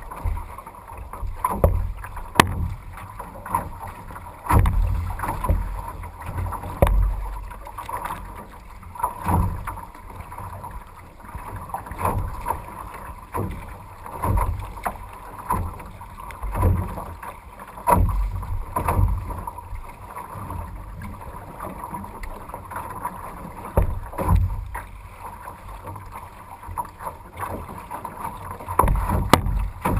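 Canoe being paddled on choppy, windy water: water splashing and slapping against the hull, with a low thump every two seconds or so, over wind noise.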